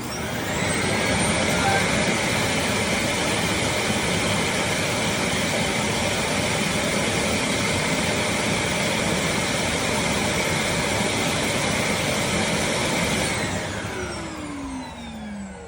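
Suction motor of a Eureka robot vacuum's bagless self-emptying station spinning up, running steadily as a rush of air with a high whine for about 13 seconds, then winding down with falling pitch near the end.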